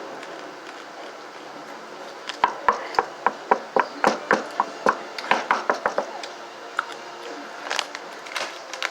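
Takis rolled tortilla chips being chewed with a quick run of crisp crunches, about five a second, starting about two seconds in and lasting a few seconds, then a few scattered crunches near the end.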